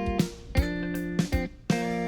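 Background music: acoustic guitar picking notes in a light, bouncy rhythm.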